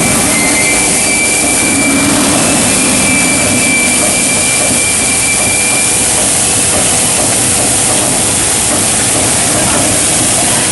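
Steady, loud running noise of a high-frequency welding line forming I-beams, with faint high whistling tones in the first half.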